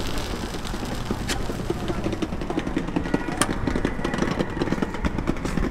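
Steady street rumble, like passing traffic, with two sharp metal clicks about a second in and a little past the middle, as a metal skewer works egg breads on the hinged metal mold of an egg-bread machine.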